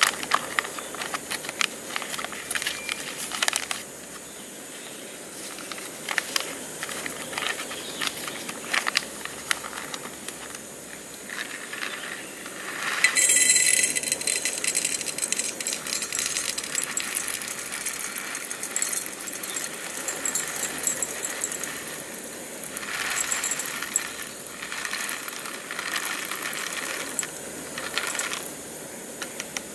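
A paper coffee bag crinkling and rustling as it is handled, with a louder burst of bag noise about thirteen seconds in. Near the end, whole coffee beans pour and rattle into a metal canister.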